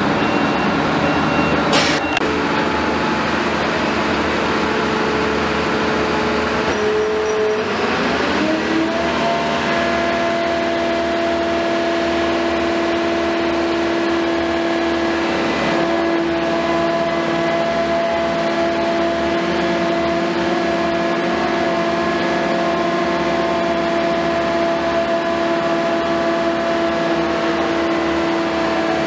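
Heavy construction machine's diesel engine running steadily, revving up about eight seconds in and then holding a higher, even speed under hydraulic work. A sharp click about two seconds in.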